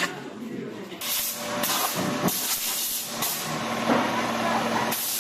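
Air hissing in a run of short, sharply cut bursts, starting about a second in, with a longer burst in the middle and a last one near the end. This fits a trigger-operated compressed-air nozzle blowing sawdust off the workpiece.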